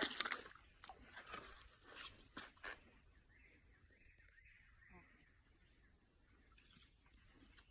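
Faint outdoor creekside ambience with a steady high-pitched whine, and a few light clicks and knocks in the first three seconds.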